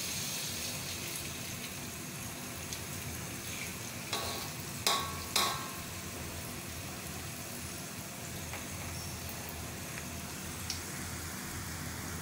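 Malunggay and egg fritters sizzling steadily in hot oil in a metal wok, with a few short knocks of a utensil against the pan around four to five and a half seconds in.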